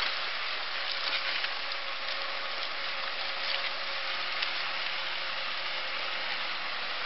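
Massey Ferguson 398 tractor running steadily under load, pulling a disc plough through soil, heard as a steady hiss with a constant whine and scattered clicks and ticks from clods and the discs.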